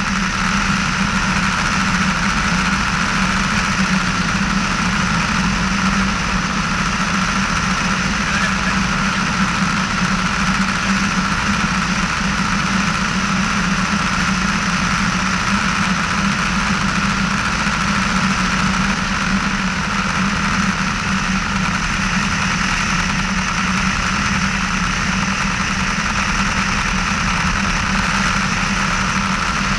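Piper PA-18-150 Super Cub's 150 hp Lycoming four-cylinder engine and propeller running steadily at reduced approach power, with air rushing past a camera mounted outside on the float struts.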